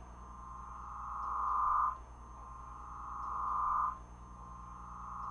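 Electronic drone music: a warbling tone that swells for about two seconds and then cuts off sharply, over and over, above a steady low hum.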